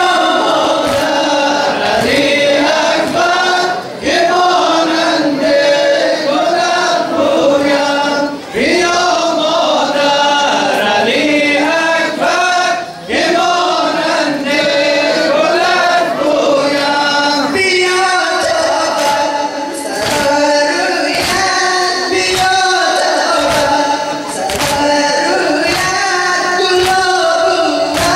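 A male reciter chants a Muharram lament (noha) through a microphone, with a group of male voices answering in chorus. Men beat their chests with open hands in a steady rhythm (sina zani, matam), keeping time with the chant.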